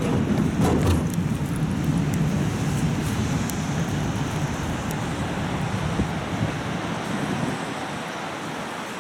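Steady vehicle and road rumble, easing off gradually toward the end.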